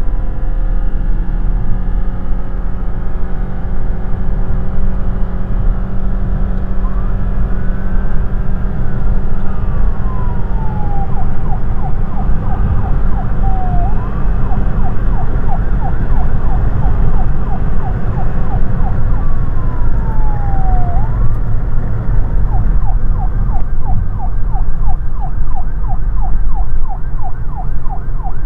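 Steady low road and engine rumble inside a car cruising at highway speed. Over it a siren sounds twice, each time a slow rising and falling wail that switches to a rapid yelp of about four pulses a second.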